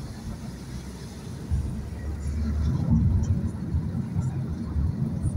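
Low rumble of a car driving, heard from inside the cabin: road and engine noise that swells and fades, getting louder about a second and a half in.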